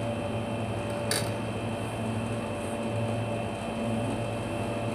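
A steady machine hum, with a single short click about a second in.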